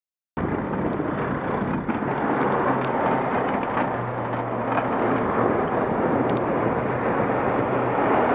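Steady rushing wind and road noise picked up by a camera on a moving bicycle, with a low steady engine hum underneath. It cuts in just after the start and cuts off abruptly at the end.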